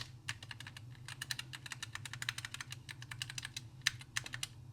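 Low-profile mechanical key switches (Gateron KS-33) clicking as keys are pressed rapidly and repeatedly, several clicks a second, while checking which keys register. A faint steady low hum runs underneath.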